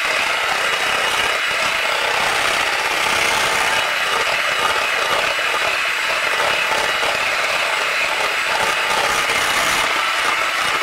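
Electric hand mixer running steadily at one speed, its beaters churning thick cheesecake batter in a glass bowl.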